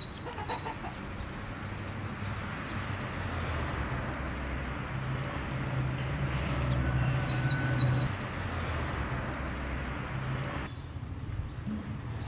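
A small bird gives two quick runs of four or five high chirps, one at the start and one about seven seconds in, over a steady hiss that swells and then cuts off abruptly near the end.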